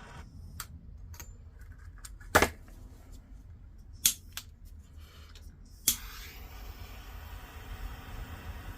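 A handful of sharp clicks and knocks from tools and parts being handled at a soldering bench, the loudest about two and a half seconds in, over a low steady hum.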